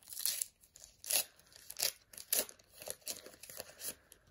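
The wrapper of a Panini Premier League trading card pack being torn open and crinkled by hand, in a series of short crackling rips about every half second that stop just before the end.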